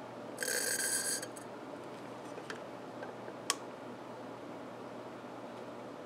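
Plastic syringe drawing very thick liquid asphaltum up through a needle from a metal can: a brief high-pitched rasp from the syringe about half a second in, then a few small clicks, the sharpest about three and a half seconds in.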